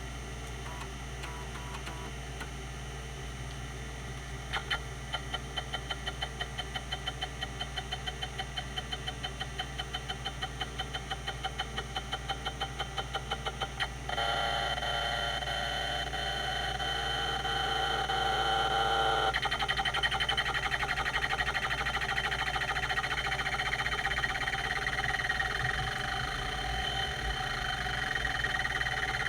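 Quantum Q540 30 MB full-height hard drive, its spindle humming steadily while the rotary voice-coil actuator seeks. About four seconds in, regular seek ticks begin at roughly three a second. About halfway through, the seeking turns into a louder, continuous run with the drive's characteristic squeaking tones, and it grows busier and more rapid a few seconds later.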